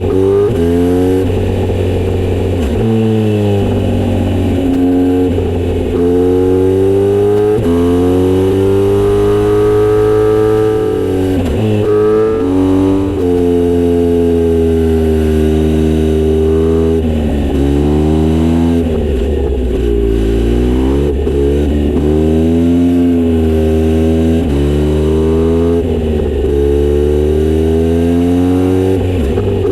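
Kawasaki Z900RS inline-four running through a Misty Kintaro short-pipe aftermarket exhaust, revs rising and falling again and again with the throttle, over a steady low drone.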